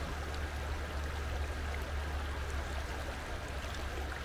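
Stream water flowing: a steady, even rush with a low rumble underneath.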